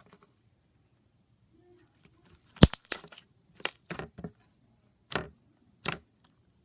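Slime being played with by hand, giving about ten short, sharp clicks and pops spaced irregularly, with a small cluster a little over two and a half seconds in.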